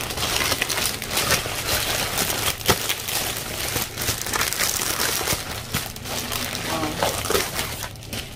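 Plastic courier mailer bag and the cellophane wrap of the box inside crinkling and rustling as they are handled and pulled apart, with many small sharp crackles.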